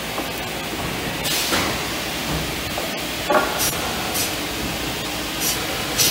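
Steady machinery noise in a shop, broken by several short hisses and a sharp clank about three seconds in.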